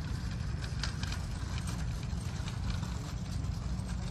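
Outdoor ambience dominated by a steady low rumble, with faint, irregular light taps like footsteps on asphalt, most of them in the first couple of seconds.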